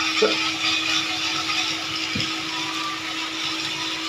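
Rail King jumbo toy train locomotive's small electric motor running steadily as it pulls its wagons around plastic track, a constant whine with a hiss from the wheels and gears. A soft knock about two seconds in.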